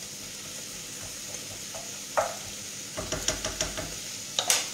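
Artichoke pieces frying in oil in a pan, with a steady sizzle. A utensil knocks once about two seconds in, clicks quickly against the pan a little after three seconds, then knocks again near the end.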